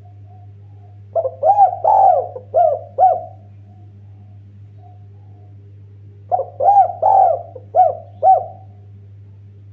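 Spotted dove (derkuku/tekukur) cooing: two phrases of about five throaty, arched coos each, about five seconds apart, with a few soft coos between.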